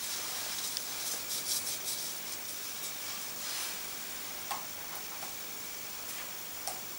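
A disposable-gloved hand rubbing and rustling against a toe while working in foot cream, in short scuffs about one to two seconds in and again a little later, over a steady hiss.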